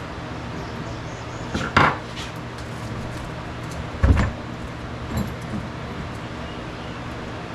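Chainsaw parts being handled during a bar and chain change: a metallic clatter about two seconds in, a heavier thud about four seconds in, then a light knock, over a steady low hum.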